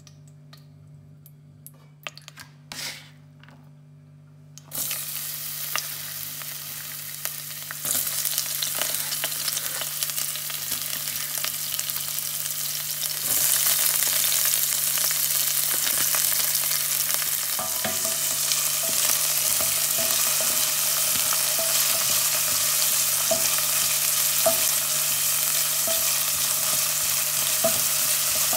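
Chopped onion and celery sizzling in hot oil in a stainless steel pot. The sizzle starts suddenly about five seconds in and gets louder in two steps, after a quiet start with a low steady hum and a few light clicks.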